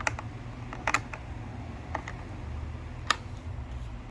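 Scattered sharp clicks and taps of hard plastic parts and a small screwdriver being handled while a pressure washer's handle is screwed on, over a low steady hum.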